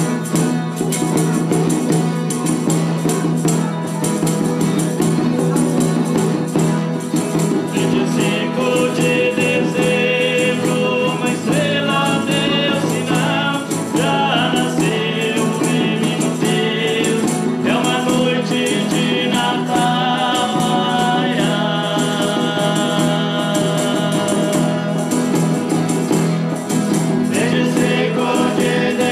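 A Folia de Reis group performing: strummed acoustic guitars and percussion, joined about eight seconds in by several voices singing a folk hymn together.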